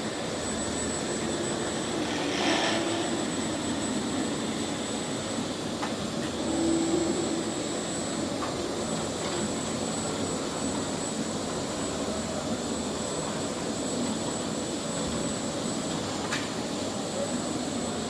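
ABB IRB 2400L industrial robot cell running, its servo-driven axes whirring steadily under a thin, steady high whine, with brief hums about two and a half and seven seconds in.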